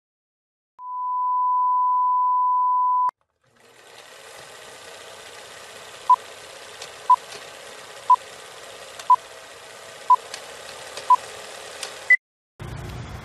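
A steady test tone for about two seconds, then a film-leader countdown: a hiss with faint crackles and a short beep once a second, six beeps, ending on a single higher blip. Street traffic cuts in just before the end.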